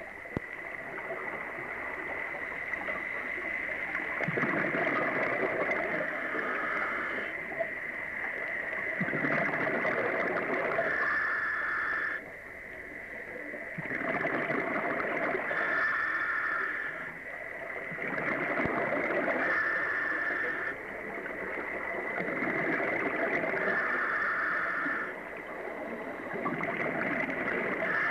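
Scuba diver's regulator breathing underwater: a hiss and a gush of exhaled bubbles, repeating about every four to five seconds, about six breaths. A steady high whine runs underneath.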